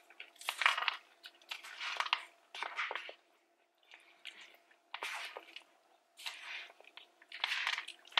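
Close-miked chewing and crunching of a mouthful of poke bowl, in short bursts a second or so apart, with a few small clicks.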